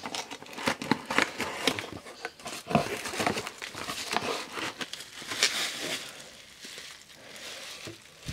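Cardboard box flaps pulled open and a bubble-wrapped package handled and lifted out, the bubble wrap crinkling with many small, sharp, irregular crackles. It quietens near the end.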